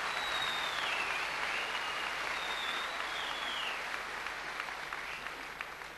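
Audience applauding, with a few shrill whistles, at the end of a kapa haka performance. The applause dies down to scattered claps near the end.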